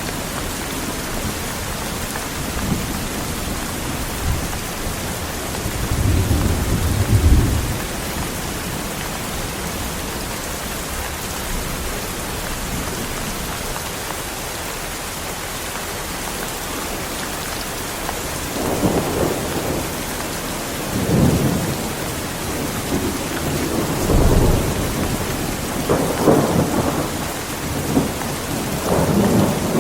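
Heavy rain falling steadily, with rolls of thunder: one deep rumble about six seconds in, then several rumbles one after another through the last third.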